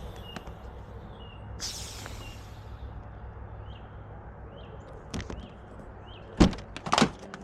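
Car lockout opening on a car door: a short hiss about two seconds in, then sharp clicks and knocks near the end as the door is worked open. A steady low hum and a bird chirping repeatedly run underneath.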